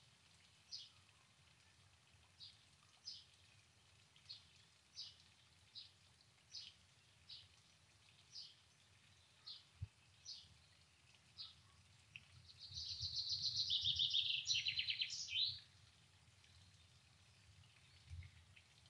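A small songbird giving short high chirps, one every second or less. About two-thirds of the way in comes a loud, fast trilled song phrase that steps down in pitch and lasts about three seconds.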